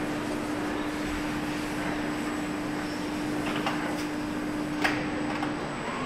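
Vehicle assembly line ambience: a steady machine hum over a background of hall noise, with a couple of sharp clicks or clanks in the second half. The hum cuts off shortly before the end.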